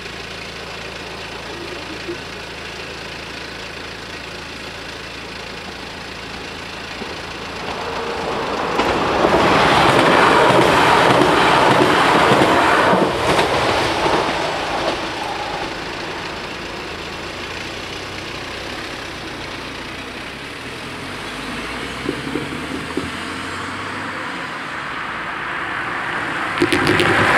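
Level crossing bells ringing steadily, then a TER regional train passes over the crossing, loud for several seconds from about a third of the way in and fading away. Near the end a car drives over the crossing after the barriers have risen.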